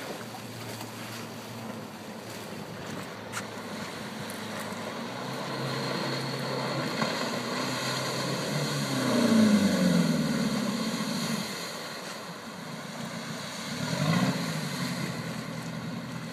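Jet boat powered by a 300 hp FNM Phantom Avenger diesel driving a Hamilton 212 water jet, running and growing louder as it comes closer; about nine seconds in it is loudest and its engine note slides down in pitch, with a brief rise and fall again near the end. Wind rumbles on the microphone.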